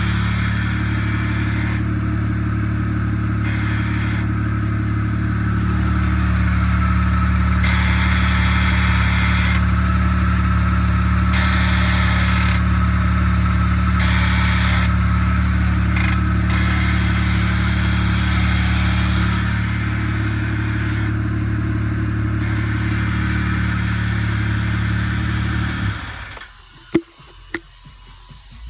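Car engine idling with the clutch-area noise in question on a car fitted with an upgraded Spec 3+ clutch and MFactory single-mass flywheel, which the owner is unsure is normal. The sound gets louder about six seconds in and eases back near twenty seconds; the engine shuts off about twenty-six seconds in, followed by a few sharp clicks.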